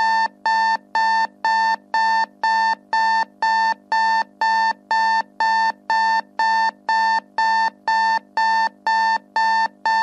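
Electronic timer alarm beeping: one steady pitched beep repeated evenly, about two a second, signalling that the five-minute countdown has run out.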